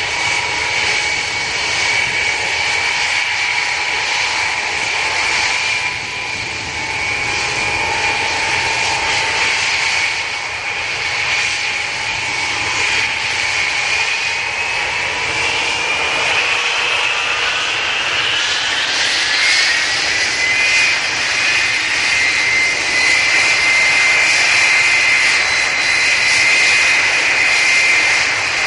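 The Ilyushin Il-76TD's four D-30KP turbofan engines run with a steady whine over a jet rush. About two-thirds of the way through, the whine rises in pitch and grows a little louder as the engines spool up for take-off.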